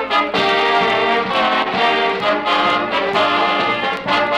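Brass band music, with trombones and trumpets playing a tune, heard from an old vinyl record transferred to digital.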